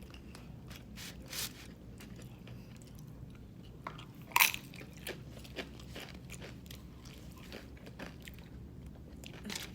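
A person biting and chewing food close to the microphone, with scattered crunches; the loudest crunch comes about four and a half seconds in.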